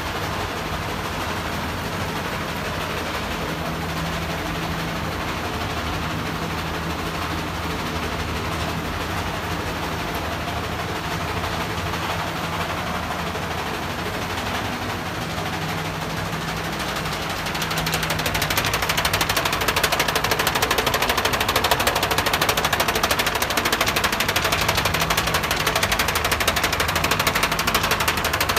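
DTF film printer with powder shaker running: a steady mechanical hum over a low drone, growing louder with a fast rattle about two-thirds of the way in.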